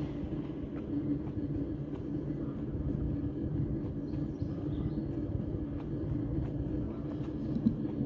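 Steady low rumble of outdoor background noise, with no distinct event standing out.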